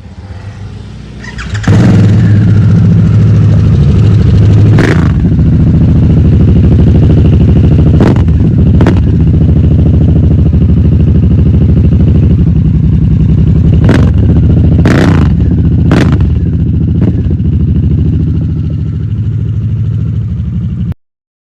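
Harley-Davidson Sportster S's liquid-cooled Revolution Max 1250T V-twin with an aftermarket exhaust starting about two seconds in, then idling loudly with about seven sharp throttle blips. The engine cuts off suddenly near the end.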